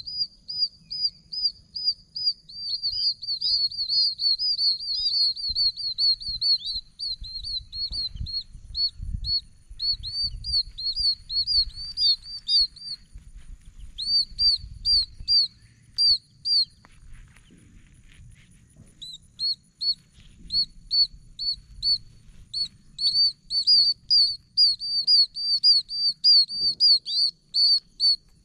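A breeding chorus of oak toads: many high, chick-like peeps repeated rapidly and overlapping. The calling thins out for a couple of seconds past the middle, then picks up again.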